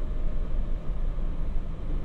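Running noise of a JR Hokkaido 721 series electric multiple unit, heard inside the passenger car: a steady low rumble of wheels on rail and the car body.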